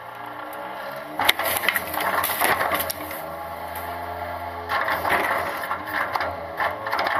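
Side-loader garbage truck's hydraulic cart tipper lifting, dumping and lowering a plastic wheeled trash cart, over a steady mechanical whine. Bagged trash drops into the hopper and the cart clatters against the lift in several sudden knocks, the first about a second in.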